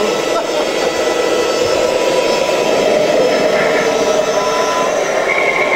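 Radio-controlled model tipper truck running, a steady whirring with several thin high whining tones, as its hydraulic tipper body is lowered.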